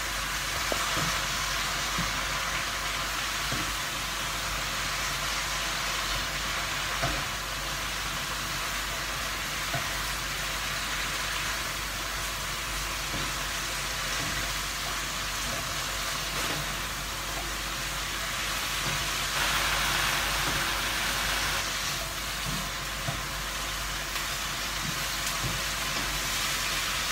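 Vegetables stir-frying in a wok over a high gas flame: a steady sizzle, with a few short knocks as they are stirred and tossed with a wooden spatula. The sizzle swells for a couple of seconds about two-thirds of the way through.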